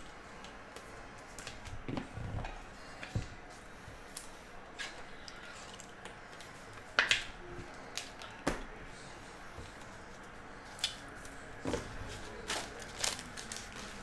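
Trading cards and clear plastic card holders being handled on a table: scattered sharp clicks and taps, the loudest about seven seconds in.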